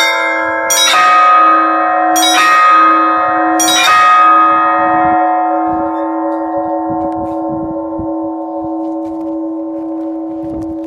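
Russian Orthodox church bells: three heavy strokes of several bells together, about a second and a half apart, then no more strokes as the bells ring on and slowly fade over a steady low hum.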